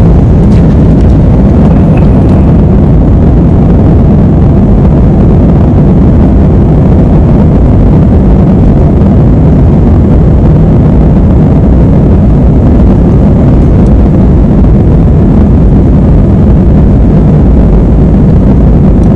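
Steady, loud jet-engine noise and rumble of an Airbus A320 airliner moving along the runway, heard from inside the passenger cabin, deepest in the low range.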